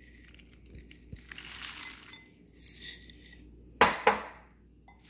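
Pumpkin seeds sliding out of a glass jar and pattering onto a salad in two pours, followed about four seconds in by two sharp knocks of the glass jar.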